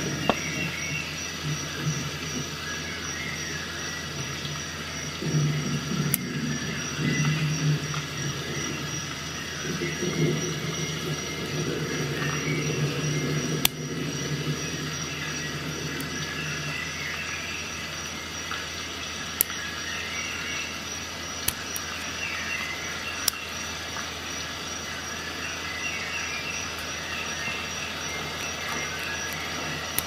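About six isolated sharp clicks, spread through the span, from a Wera Rapidaptor quick-release bit holder and 1/4-inch hex screwdriver bits being handled and snapped together. Under them runs a steady background hiss and hum, with a low handling rustle in the middle.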